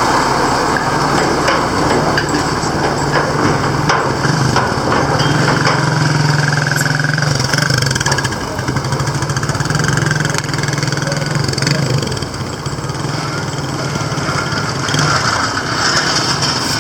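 Truck engine running close by, a steady low engine note over road noise, strongest through the middle and easing off near the end.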